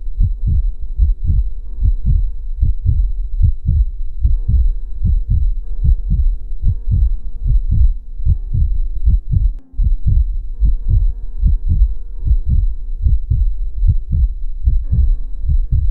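Heartbeat sound effect: quick, regular low thumps over a steady hum of sustained tones. It drops out for an instant about ten seconds in.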